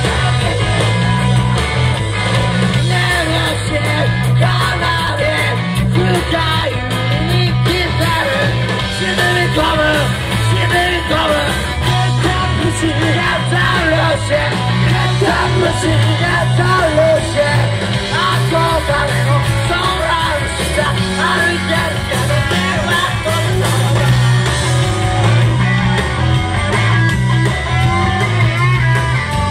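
Live rock band playing loud: electric guitars, bass and drums with a singer's voice, sometimes yelled, heard from among the audience in a small club.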